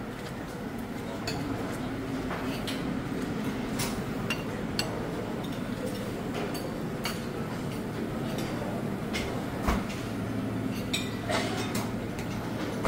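Scattered clinks of buffet plates, serving spoons and cutlery, a dozen or so sharp separate knocks, over a steady background hum.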